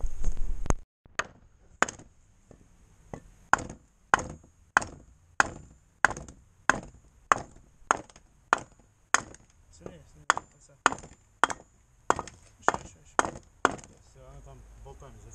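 About twenty sharp metallic knocks, evenly paced at a bit under two a second, as the rear axle shaft is rammed down into the new wheel hub bearing to drive it onto the shaft. A brief loud noise comes right at the start.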